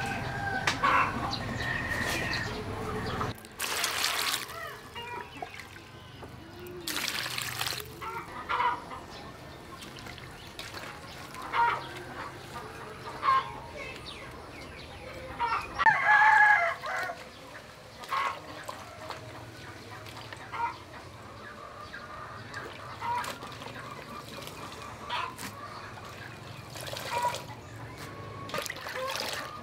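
Chickens clucking now and then, with a rooster crowing once about halfway through, the loudest sound. A few splashes and rustles as hands work oyster mushrooms in a metal bowl of water, mostly in the first eight seconds.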